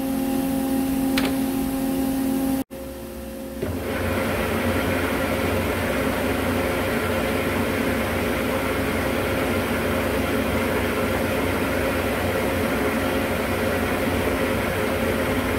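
Metal-turning lathe running steadily, its motor and geared headstock giving a hum with several held tones. It cuts out briefly near three seconds in, then runs louder and rougher as the spindle turns a steel shaft in the chuck.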